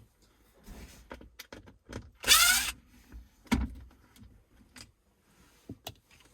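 Cordless drill with a T20 Torx bit spinning briefly with a rising whine about two seconds in, backing out a screw from the plastic console tray. Scattered clicks and knocks of handling and plastic trim around it.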